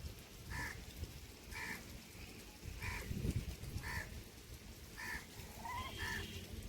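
A bird gives a short call six times, about once a second, over a low rumble.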